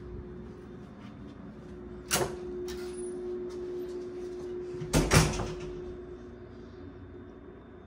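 Hotel room door with a keycard lock: a sharp latch click about two seconds in, then the door shutting with a heavy thud about five seconds in, over a faint steady hum.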